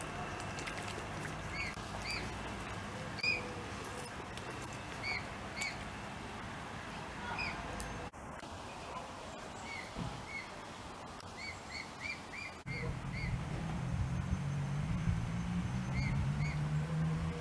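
Mute swan cygnets calling: short, high whistled peeps, each a quick rise and fall, often in pairs, with a quick run of them about two-thirds through. A low hum rises in the background from about two-thirds through.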